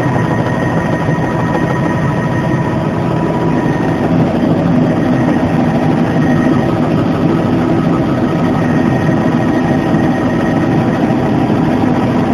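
Bell JetRanger helicopter in flight, heard from inside the cabin: the steady drone of its turbine engine and rotors, with a thin steady whine over it.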